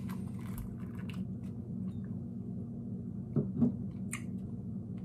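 Small wet mouth sounds of a man sipping gin and working it over his palate, with a louder mouth sound about three and a half seconds in. A steady low hum runs underneath.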